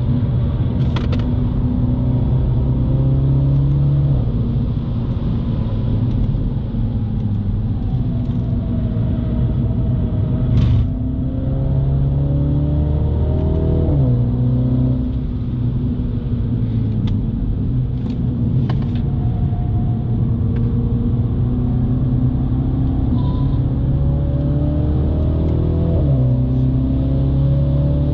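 2018 MINI John Cooper Works' turbocharged four-cylinder engine under hard acceleration, heard inside the cabin: its note climbs steadily through the revs and drops suddenly at an upshift about halfway through and again near the end. A few short sharp clicks sound over it.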